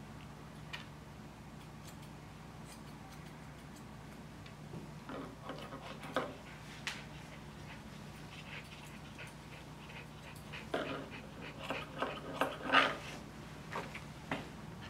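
A small white dog making short, sharp vocal sounds in two clusters, about five seconds in and again from about eleven seconds, the loudest near the end, over a low steady hum.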